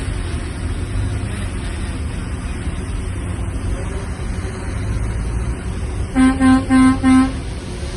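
Heavy diesel engine running steadily. About six seconds in, a vehicle horn gives four short beeps in quick succession.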